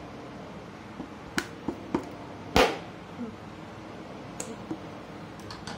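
Scissors snipping and clicking at the packing tape on the end of a cardboard tube: a handful of short sharp clicks, the loudest a brief crack about two and a half seconds in.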